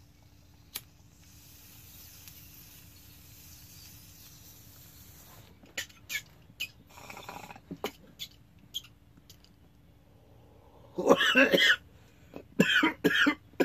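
Glass bong bubbling faintly, with small clicks and pops, during a long draw on the bowl. This is followed by a man coughing hard from the hit: one burst of coughs about eleven seconds in and more near the end.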